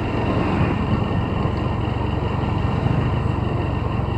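Motorcycle engine running steadily while being ridden at an even speed, with a constant rush of wind and road noise.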